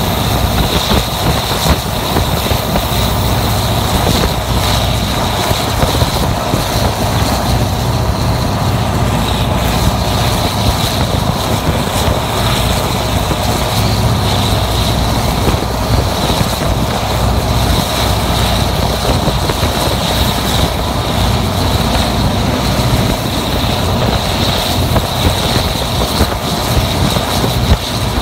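EMD G26HW-2 diesel locomotive (SŽ class 664) with its 16-cylinder two-stroke EMD 645 engine running steadily under load, pushing as a helper up a steep grade. A deep, steady drone is heard, with a steady high whine above it.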